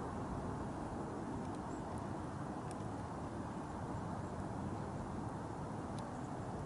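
Steady outdoor background rumble and hiss, with a few faint ticks about two, nearly three and six seconds in.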